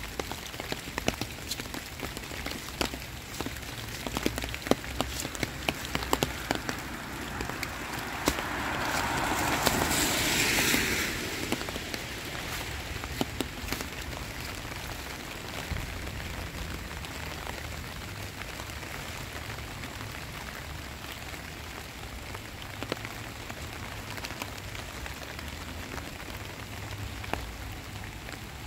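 Heavy rain falling steadily, with sharp taps of drops landing close by, frequent in the first half and sparser later. About a third of the way in, a louder rushing sound swells for a few seconds and then fades quickly.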